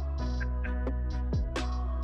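Background electronic music: a deep, steady bass with held tones, sharp percussion hits about four times a second, and a bass-drum hit that drops quickly in pitch about one and a half seconds in.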